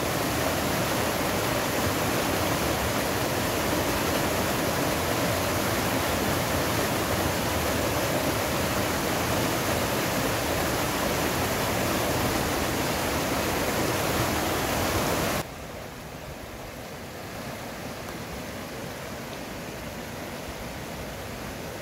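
Steady rush of water in a small mountain river. About fifteen seconds in it cuts abruptly to a quieter, similar rush.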